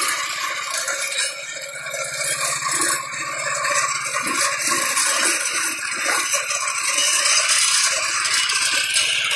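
Neva MB-2 walk-behind tractor's engine running steadily, with the Zarya rotary mower's spinning discs and blades giving a continuous metallic rattle as they cut grass.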